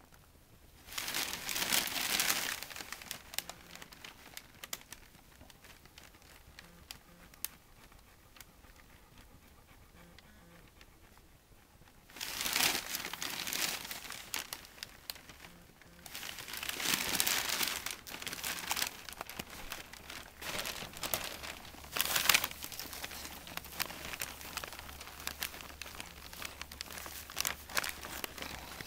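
Plastic sheeting crinkling and rustling under a collie in labour as she shifts and nests in a whelping pool, coming in several loud bursts with quieter spells and scattered small crackles between.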